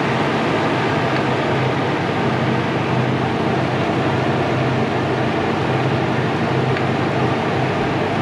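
Toyota 1UZ-FE VVTi 4.0-litre V8 idling steadily under an open bonnet.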